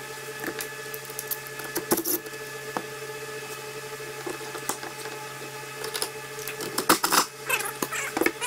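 Scattered light metallic clicks and clinks of hand tools working on a partly disassembled Bosch CP4 diesel injection pump, over a steady hum, with a louder burst of clatter about seven seconds in.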